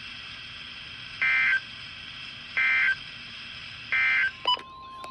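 Emergency Alert System end-of-message code: three identical short bursts of shrill two-tone data chirps, each about a third of a second long and about a second apart, marking the end of a severe thunderstorm warning. Near the end comes a click, and a steady beep-like tone begins.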